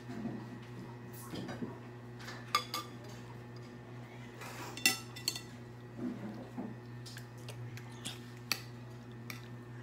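Metal spoon clinking and scraping against a glass serving bowl while scooping soup and noodles: a handful of sharp clinks spread out irregularly, the loudest about five seconds in.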